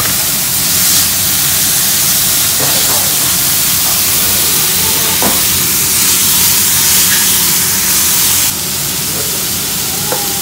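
Gourd vine shoots stir-frying with garlic in a hot pan: a loud, steady sizzle with a few faint knocks of the utensil. The sizzle drops clearly quieter about eight and a half seconds in.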